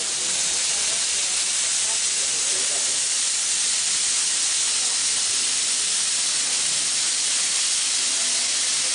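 Dry sandblasting gun blasting abrasive grit with compressed air against a stone wall: a steady hiss of air and sand, cleaning the darkened stone without water.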